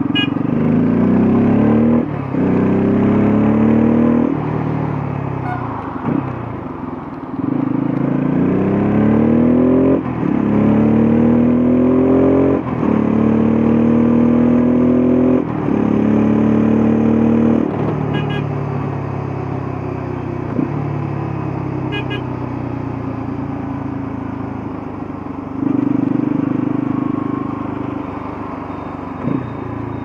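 Bajaj Pulsar F250's single-cylinder engine pulling hard through the gears: the revs climb and drop back at each of several upshifts over the first half. It then eases to a steadier, quieter cruise, with a short rise in throttle near the end.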